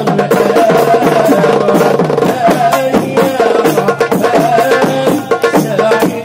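Mika GMP darbuka with a clear blue head played by hand in a fast rhythm of sharp rim strokes and deep centre strokes, demonstrating the drum's tone. A melody runs underneath.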